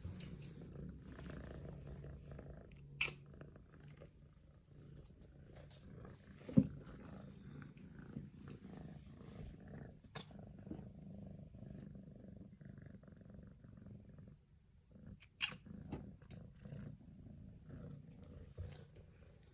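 Domestic cat purring steadily, close up, with a few faint clicks and one sharp knock about six and a half seconds in.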